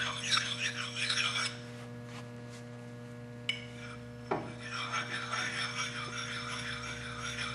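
An oiled hard sharpening stone rubbing in repeated strokes along the steel bit of a Jersey pattern axe, honing it to a finer edge. The strokes pause for about two seconds, then a click and a knock come before the strokes start again.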